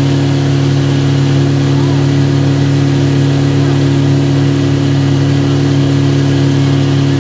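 An engine running at a steady speed: a constant, unchanging low drone.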